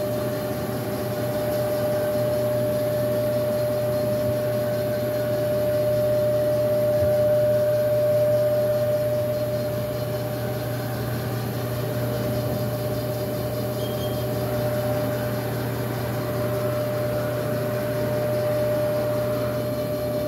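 Haas DS-30Y CNC lathe running with a spindle turning at steady speed: a steady whine over a low machine hum.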